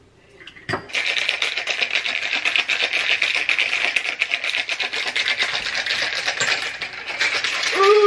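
Ice cubes rattling rapidly inside a cocktail shaker being shaken hard to chill a dirty martini of vodka and olive juice, starting about a second in. Near the end a short gliding vocal exclamation rises over the rattle.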